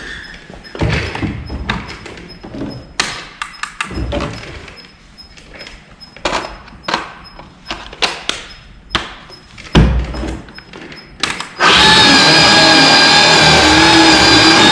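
Knocks and clicks from handling a small cordless chainsaw, then near the end the saw starts suddenly and runs at a loud, steady whine as its bar goes into the boat's wooden transom.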